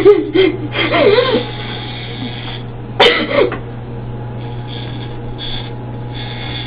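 A woman sobbing in short, catching cries, loudest near the start and about three seconds in, over the steady buzz of electric hair clippers.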